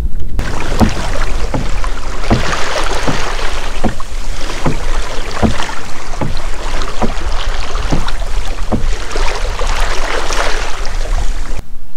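Choppy water slapping and splashing against a Hobie Outback kayak's hull as it moves forward, about two slaps a second, over a steady wash of water and wind rumbling on the microphone.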